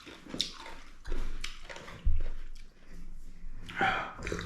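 Close-miked eating sounds: chewing and mouth noises, with two low thumps about one and two seconds in.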